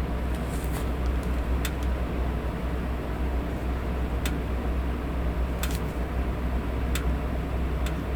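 Steady fan noise with a low hum, and about six light, sharp clicks scattered through it.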